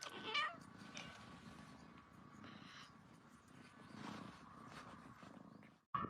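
Domestic cat purring, a faint low rumble that swells and eases, after a brief high call right at the start.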